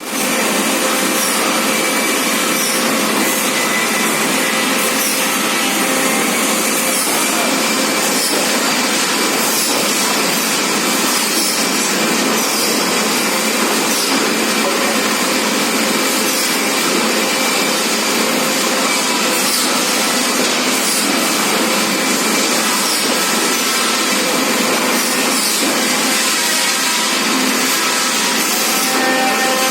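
Forklift running steadily: a constant machine noise with a few faint whining tones in it.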